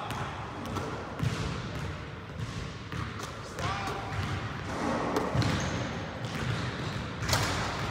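Basketballs bouncing on a hardwood gym floor: a series of separate thuds a second or two apart, echoing in a large gym hall.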